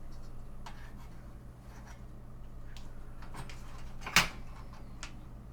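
Faint handling clicks and taps of the computer's parts being handled, with one sharp click about four seconds in, over a steady low hum.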